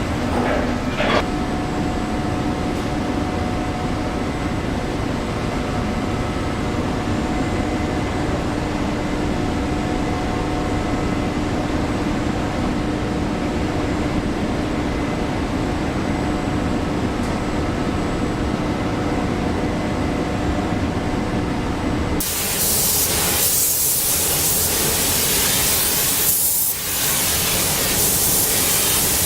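Steady factory production-line machinery noise with several held humming tones. About 22 seconds in it cuts abruptly to a louder, even hiss, like air or spray.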